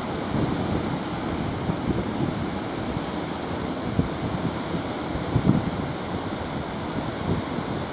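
Surf breaking and washing in steadily, with wind rumbling on the microphone in gusts, the strongest a little after five seconds in.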